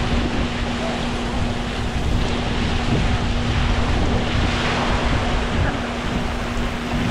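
Water rushing down side-by-side racing water slides, with a louder splash about four seconds in as two riders slide down into the run-out. Wind buffets the microphone, and a steady hum runs underneath.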